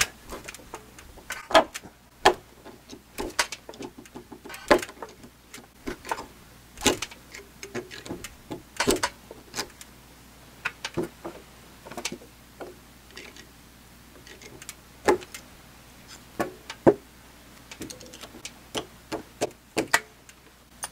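Claw hammer working at a nail in a timber purlin: irregular sharp knocks and clicks of steel on wood and nail, spaced out with short pauses between them.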